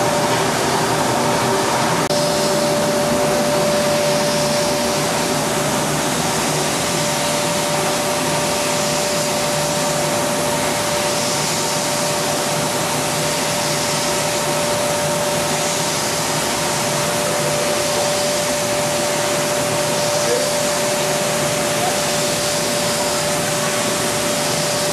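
Industrial jar-washing machine (Marba MS 6000) running: a steady rushing of blown air and spray with a constant whine.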